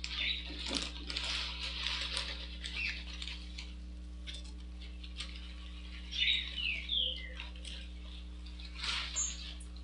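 Coarse granular bonsai substrate pouring and rattling into a glazed ceramic pot around the roots, heaviest in the first three seconds, then scattered pattering of grains. A few short high chirps come about six to seven seconds in, over a steady low hum.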